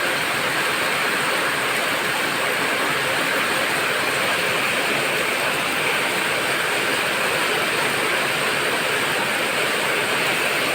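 Heavy rain falling in a steady downpour, an even hiss that holds without change.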